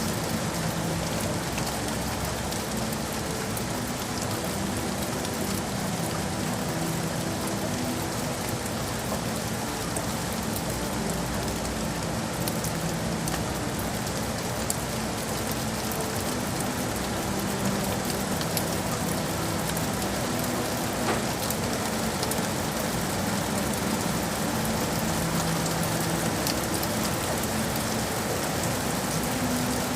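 Steady rain falling on hard city surfaces: an even hiss flecked with small drop ticks, with a low hum underneath that swells and fades.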